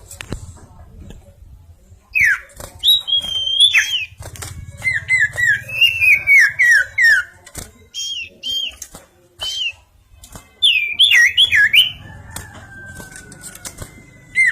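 Common iora (cipoh) singing vigorously: bursts of clear, downslurred whistled notes repeated in quick series, starting about two seconds in, again around six seconds and near eleven seconds, with high thin chattering notes over them.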